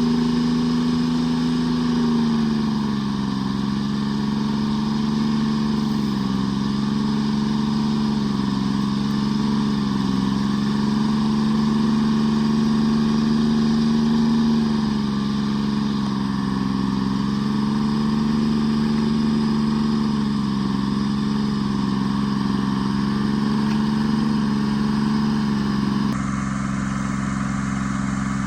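Tree Farmer forwarder's diesel engine running steadily under work, its pitch dropping slightly about two seconds in and dipping briefly a few more times. The sound changes abruptly near the end.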